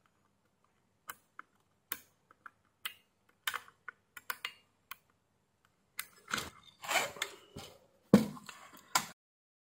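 Light, scattered clicks of metal tweezers on the pins of a through-hole IPM as each pin is wiggled to check for any still held by solder. From about six seconds in comes a louder clatter and rustle as the circuit board is turned over, with a sharp knock a little after eight seconds.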